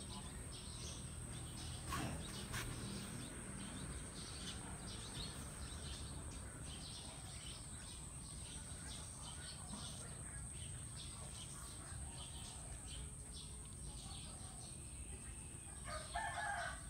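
Birds chirping over and over above a steady high-pitched whine, with two sharp knocks about two seconds in and a chicken calling near the end.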